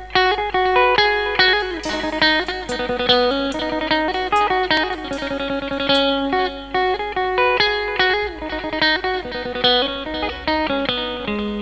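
Mor lam stage band playing an instrumental intro: an electric guitar plays a busy melody of quick notes over drums and bass.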